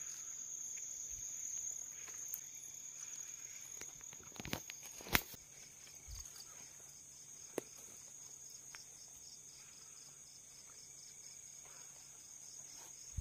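Insects chirring steadily at a high pitch, with a second insect call pulsing rapidly beneath it. A few sharp clicks cut through, the loudest about five seconds in.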